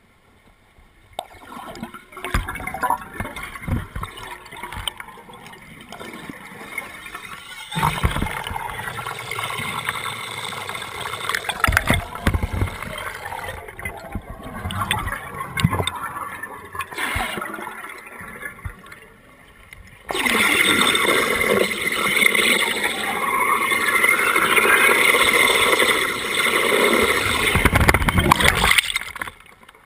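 Underwater bubbling and gurgling of a scuba diver's air. About twenty seconds in, a steady loud rush of air and bubbles starts as a delayed surface marker buoy is inflated, and it stops suddenly near the end.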